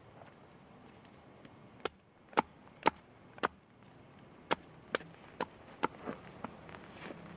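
Sharp wooden knocks, about two a second in two runs, like wood being chopped or struck with a blade or mallet.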